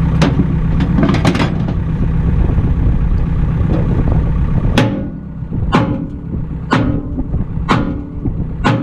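An engine idling steadily. A few sharp clicks sound near the start, then five sharp knocks come about once a second, each ringing briefly.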